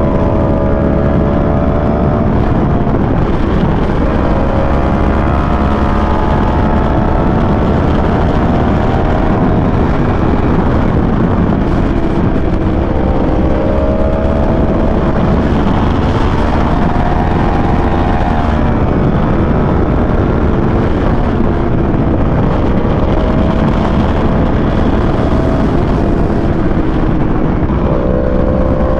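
Motorcycle engine running hard at speed. Its pitch climbs and then drops again and again as it accelerates, shifts and rolls off through the bends, over a steady rush of wind and road noise.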